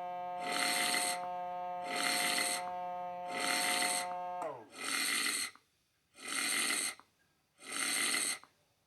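Regular snore-like noise repeating about once a second, with the steady hum of the anti-snoring pillow's small air pump inflating it; the pump's pitch slides down and it stops about four and a half seconds in.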